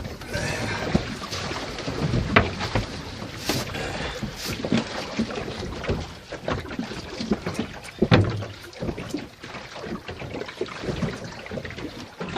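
Irregular knocks, clicks and thumps from handling a freshly landed gummy shark on a boat deck, with the loudest knocks about two seconds in and again about eight seconds in, over wind and water noise.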